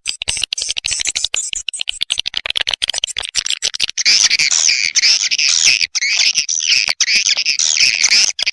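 Edible-nest swiftlet calls played as a lure for a swiftlet house: rapid clicking chirps that turn into denser, louder twittering about four seconds in.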